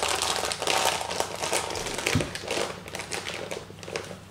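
Plastic tortilla packet crinkling and rustling in irregular crackles as hands pull and twist at it, the packet refusing to open.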